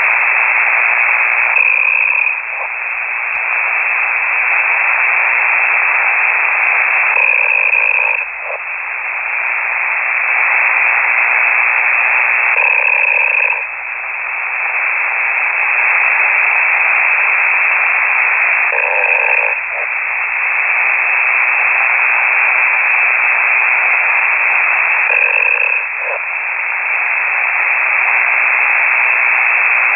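Ham radio operator snoring over the air, received through a KiwiSDR: a steady, loud radio hiss with a short pitched snore about every six seconds, five times in all. This is an operator asleep with the transmitter keyed.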